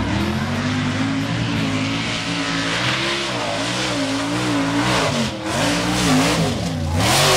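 Mud-racing pickup truck's engine revving hard as it drives through a mud pit: the revs climb at the start, then rise and fall again and again as the driver works the throttle. A louder rush of noise comes in near the end.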